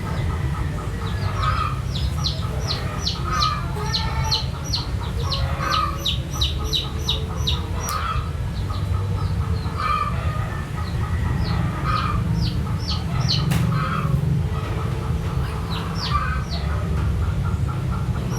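Chickens clucking, with quick runs of short high chirps and a separate call every second or two, over a steady low rumble.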